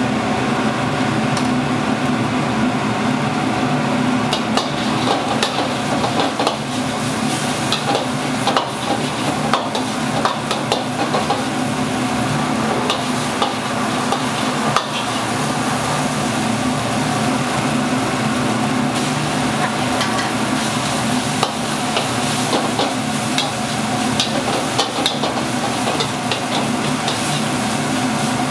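Chicken fried rice being stir-fried in a wok, the metal spatula scraping and clacking against the pan in quick, irregular strokes over continuous sizzling. A steady low hum runs underneath.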